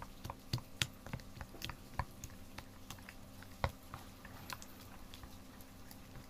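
Sticky slime being pulled and worked with a plastic spoon in a glass bowl: irregular wet clicks and pops, thickest and loudest in the first few seconds, then thinning out.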